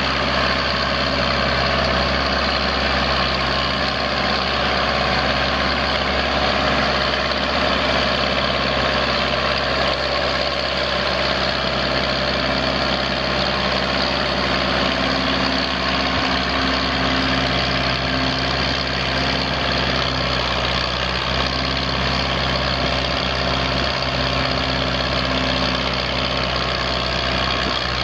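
John Deere 3020 tractor's four-cylinder gas engine running steadily at idle.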